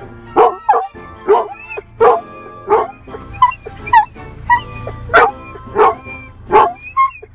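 A dog barking over and over inside a moving car, about a dozen loud barks at a steady pace of roughly three every two seconds, with a few higher yelps about halfway through. A low steady rumble of the car runs underneath.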